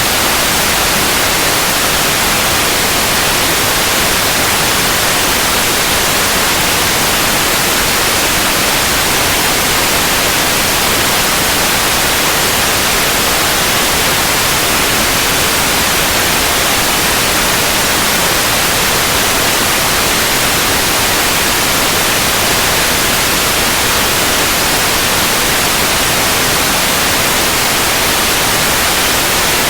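Steady, loud white noise: an even hiss with no changes or events, weighted toward the high end.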